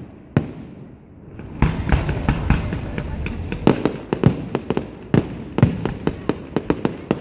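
Aerial fireworks bursting: one bang shortly after the start, then from about a second and a half in a rapid, continuous volley of sharp bangs.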